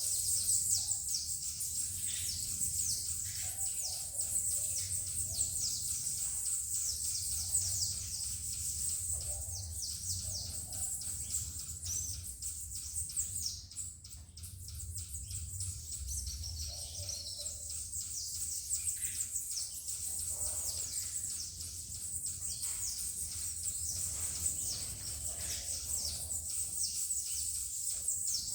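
Saffron finches chirping in rapid, continuous high-pitched strokes over a steady high hiss, with a low rumble underneath.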